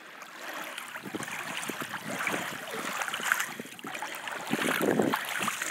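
Small waves lapping and splashing in shallow water around the feet at the shoreline, swelling about a second in and louder again near the end.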